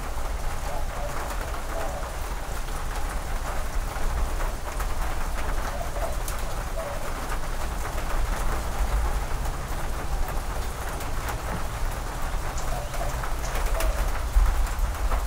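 Steady rain falling on a corrugated metal porch roof and the wet yard, with scattered drips ticking through it and a low rumble underneath. A bird calls a few times.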